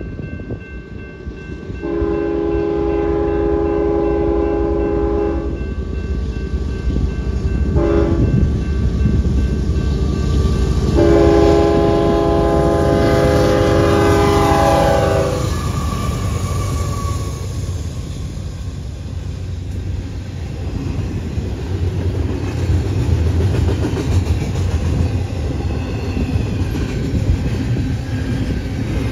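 Diesel locomotive air horn sounding three blasts, long, short, then long, the last one dropping in pitch as the locomotive passes. The train then rolls by with a steady low rumble and wheel clatter.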